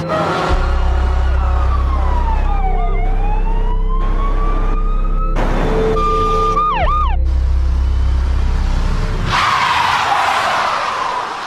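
Emergency-vehicle siren in a slow wail, sliding down in pitch and back up, then a few quick yelps, over a low steady drone. About nine seconds in comes a burst of rushing noise that fades away near the end.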